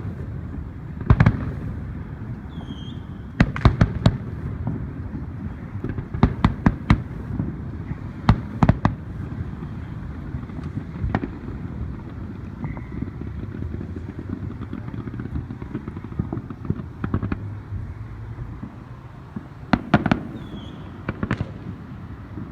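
Fireworks going off: sharp bangs and crackles in irregular clusters, some in quick runs of several, over a steady low rumble.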